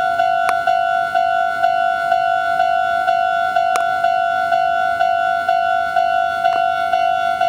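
Japanese railway level-crossing warning bell ringing, a steady two-note electronic ding repeating about twice a second, with a few sharp clicks.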